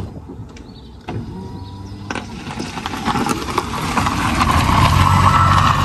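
Car pulling away and driving past close by, its engine and tyre noise growing steadily louder over the last few seconds.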